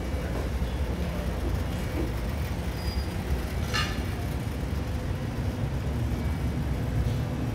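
Steady low rumble of background noise in a buffet dining room, with a brief high clink a little under four seconds in.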